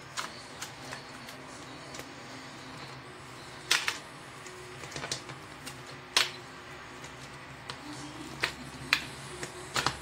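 Scattered sharp clicks and knocks from a metal heart-shaped springform cake tin as its latch and ring are handled and opened, over a low steady hum.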